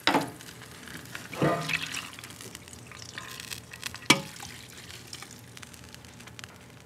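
Deglazed red-wine pan juices poured from a metal roasting pan into a stainless steel stock pot, a soft trickle and splash, with a few sharp metal knocks, the loudest about four seconds in.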